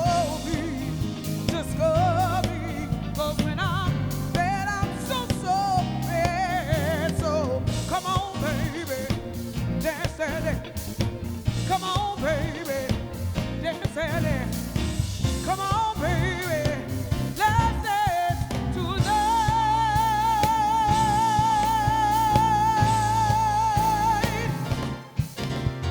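Live soul band playing with a lead singer, who ends on a long note with vibrato held for about five seconds before the band drops out briefly.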